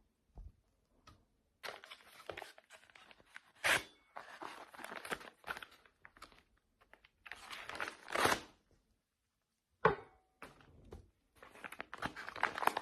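Packaging being torn open by hand: irregular ripping and crinkling in short rasps, with a sharp snap about ten seconds in.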